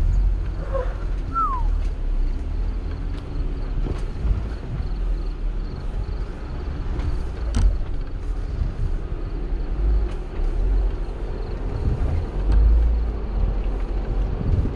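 Jeep Wrangler JL Rubicon crawling over rock at low speed, a steady low rumble, with a short falling squeak about a second in and a sharp knock about halfway through.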